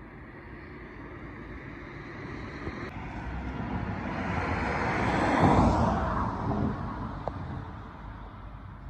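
A vehicle passing by: a rushing noise that swells to its loudest about five and a half seconds in, then fades away over the next second or two.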